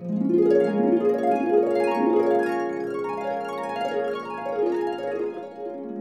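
Harp played in quick runs of plucked notes that step up and down, each note ringing on into the next. It starts abruptly and grows gradually softer.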